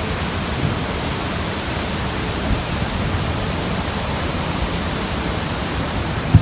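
Steady rushing noise, with one short knock near the end.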